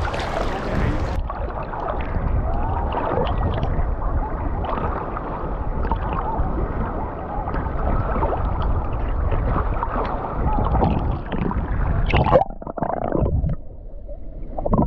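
Sea water sloshing and lapping against a waterproof action camera held at the surface, muffled as the water washes over the microphone. Near the end the camera goes under and the sound turns to a dull underwater gurgle.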